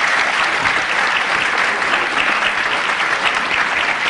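Audience applauding: dense, steady clapping that begins to thin into separate claps near the end.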